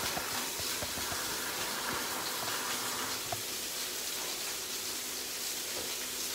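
Scallops sizzling steadily as they sear in hot oil in a nonstick frying pan over high heat.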